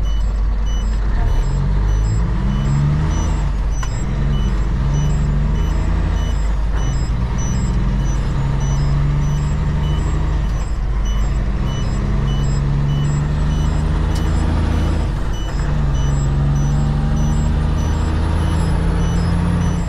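Kenworth truck's diesel engine pulling a loaded trailer away from a standstill, its pitch climbing and dropping several times as it works up through the gears. A rapid high beeping repeats throughout.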